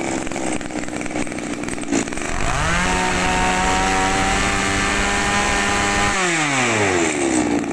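Komatsu Zenoah BC2600 26cc two-stroke brush cutter engine idling just after being pull-started. About two seconds in it is revved up, held at high revs for about three seconds, then drops back to idle near the end.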